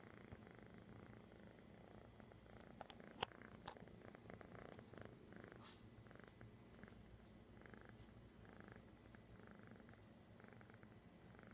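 Kitten purring softly, a steady low rumble that pulses about twice a second. A few sharp clicks about three seconds in.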